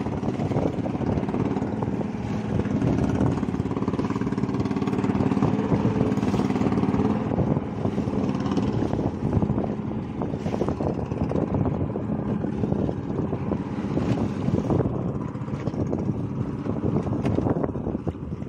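A small wooden fishing boat's engine running steadily under way, mixed with wind and water splashing along the hull.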